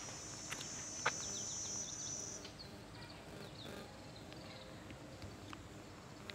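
A cicada buzzing on one steady high note, cutting off after about two seconds, followed by a run of short high chirps. A few faint footsteps on the paved path.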